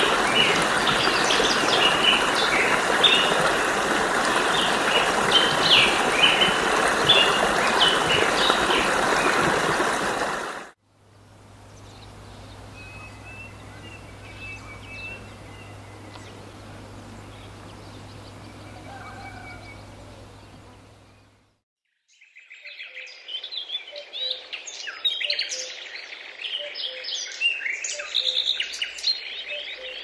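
Forest birds chirping over the steady rush of running water, which cuts off abruptly about a third of the way in. A quieter stretch follows with a steady low hum and a few faint bird calls, then after a brief gap birds chirp busily, with a lower call repeated about once a second.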